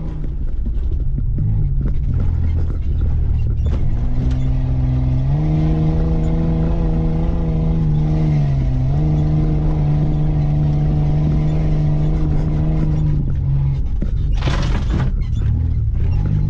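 Mitsubishi Pajero's engine running under load, heard from inside the cabin while driving off road: its pitch climbs in steps over the first few seconds, holds steady, dips briefly about halfway and picks up again. A short loud burst of noise comes a couple of seconds before the end.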